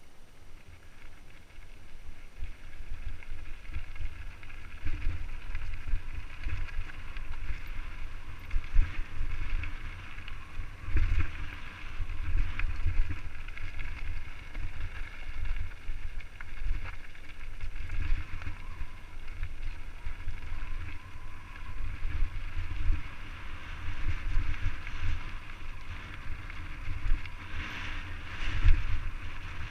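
Wind buffeting a helmet camera's microphone on a fast mountain-bike descent, with tyres crunching over loose gravel and occasional knocks from the bike over bumps.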